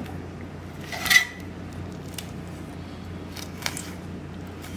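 Flexible fillet knife cutting through the rib bones of a long-tail sea bass on a plastic cutting board: one sharp click with a brief ring about a second in, then a few fainter clicks, over a low steady hum.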